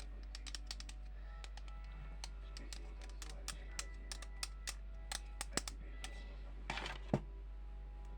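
Irregular light taps and clicks on a hard object, with a short scrape and a sharper knock about seven seconds in, over a constant low background hum that the uploader flags as unwanted noise.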